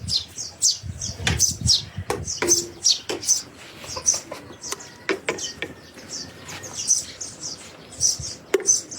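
Small birds chirping busily: short high chirps, several a second, throughout, with a few sharp knocks among them.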